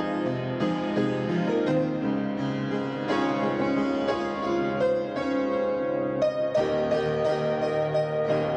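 Background instrumental music led by a keyboard, in a harpsichord- or piano-like tone, playing a flowing melody over sustained chords.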